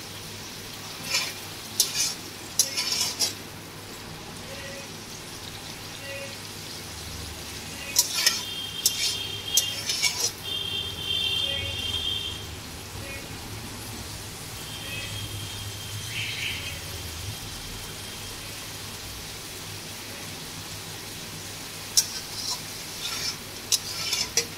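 Prawns frying in oil in an aluminium kadai, a steady sizzle. A spatula stirs them, scraping and knocking against the pan in three spells: near the start, around the middle and near the end.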